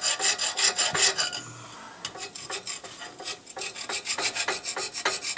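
Coarse hand file rasping across a cast-iron manifold flange in quick short strokes, about four a second, grinding off old gasket that has fused into the iron. The strokes stop for about a second, a little over a second in, then start again.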